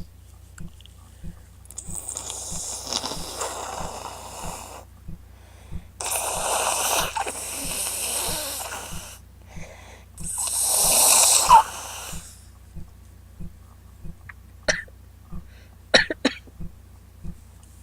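A woman with a head cold blowing her stuffed-up nose into a tissue three times, each a long wet, snotty blow of two to three seconds, the last the loudest and stopping abruptly. A few quick sharp sniffs follow near the end.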